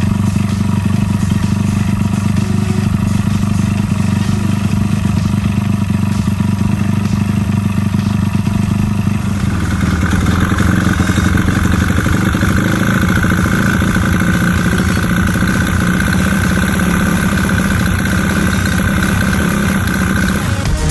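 Honda Monkey's single-cylinder engine running steadily with an abnormal noise. About halfway through, a steady higher whine joins in. The owner traced the noise to play in the crankshaft and a scored piston and cylinder.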